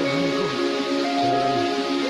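Background music with sustained chords and a few melodic notes.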